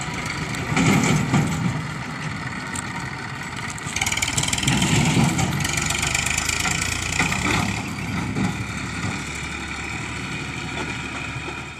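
Farm tractor's diesel engine running as it pulls a trailer across rough ground. It gets louder about a second in, and again for a couple of seconds from about four seconds in.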